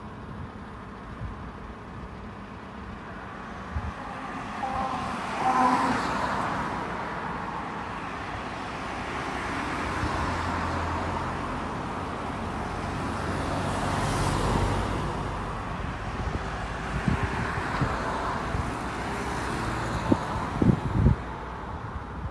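Road traffic: about four vehicles pass one after another, each swelling and fading away. A few short low thumps come near the end.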